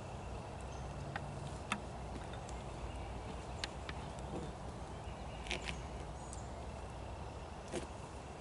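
Scattered light clicks and knocks, about five in all, from a climber's boots and gear on XOP mini climbing sticks and an aider as he steps down the tree trunk, over a steady low rumble.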